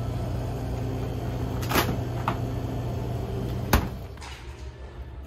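Glass-door store drinks cooler standing open with a steady low hum, a couple of clicks and knocks as a pack of beer is pulled off the shelf, and a sharp knock just before four seconds in as the door shuts, after which the hum is quieter.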